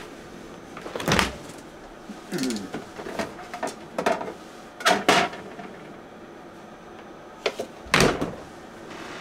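Household refrigerator door pulled open with a thump about a second in and shut with another thump near the end, with knocks and clatter of containers being moved about inside in between.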